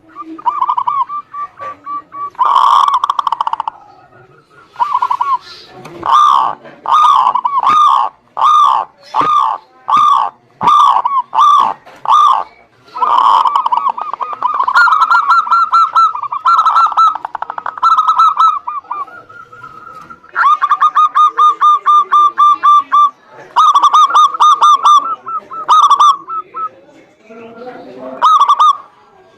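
Zebra dove (perkutut) cooing: loud repeated cooing notes, some evenly spaced at just under two a second and others run together into fast rolling trills, with short pauses between phrases.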